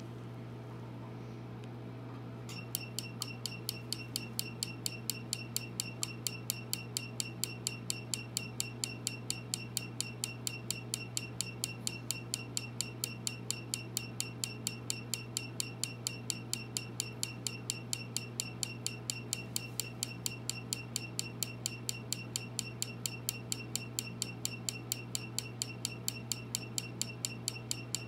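Tattoo-removal laser firing about three pulses a second, starting about two and a half seconds in, each pulse a sharp snap with a short high beep, over a steady low hum of the machine.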